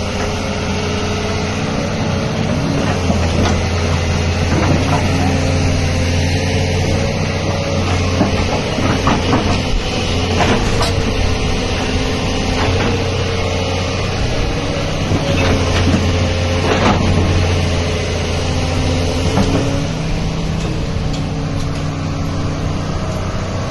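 Doosan DX225LCA hydraulic excavator running: a steady diesel drone that swells and eases as it works, with scattered knocks and clanks.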